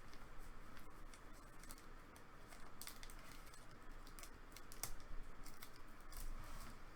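Faint, scattered clicks and light rustling of trading cards being handled.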